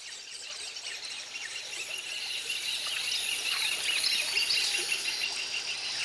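A dense chorus of birds chirping and insects trilling, growing steadily louder.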